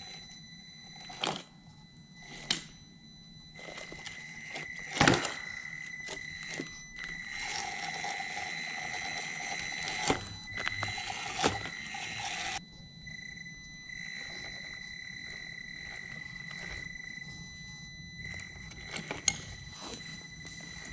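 Electric motor and drivetrain of a 1/18-scale Traxxas TRX-4M Bronco RC crawler whining with a steady high tone as it crawls, running louder and rougher for about five seconds in the middle. Sharp knocks break in now and then as the tyres and chassis bump over broken wooden floorboards.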